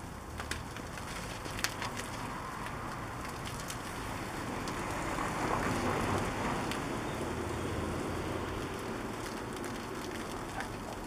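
Water spray hissing and crackling on a car's bodywork during a wash. It swells about four seconds in, with a couple of sharp clicks in the first two seconds.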